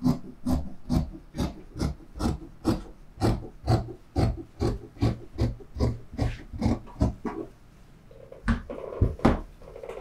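Dressmaking scissors snipping steadily through fabric along a cutting line, about two to three cuts a second. Near the end the cutting stops and the cut fabric is handled, with a few knocks and rustles.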